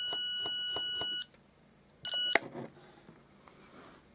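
Electronic stud detector sounding a continuous high-pitched beep that cuts off about a second in, then one short beep about two seconds in. The continuous tone signals that the sensor is over the edge of a stud behind the plaster.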